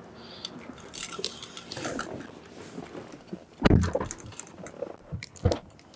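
Rustling, clicks and knocks of people climbing in and settling into the seats of a Lamborghini Huracán EVO's cabin, with a heavy thump about three and a half seconds in and a smaller knock near the end.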